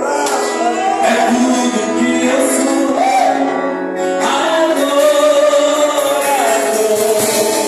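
Church worship band playing live with voices singing a hymn-like melody over sustained instrumental chords, in a large reverberant hall.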